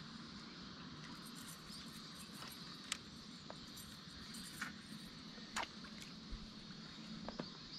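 Faint steady outdoor background noise with a few short, sharp clicks scattered through it.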